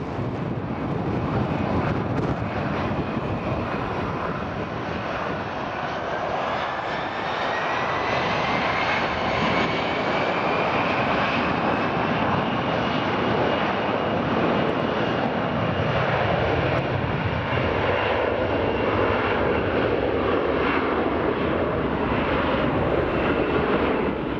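Airbus A321-200 airliner's twin jet engines spooling up to takeoff power for the takeoff roll: a loud roar with a whine that rises in pitch over several seconds, then holds steady.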